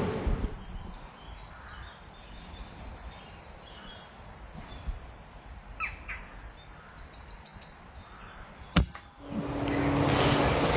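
Quiet woodland with small birds calling in short high trills and chirps. About nine seconds in comes a single sharp crack, and a louder steady noise with a low hum rises after it.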